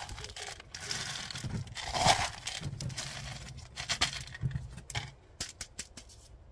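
Gritty orchid potting stone, a kanuma-rich mix, rattling and crunching as it is worked into a pot around a spring orchid's roots. The loudest moment comes about two seconds in, and near the end only a few sparse clicks remain.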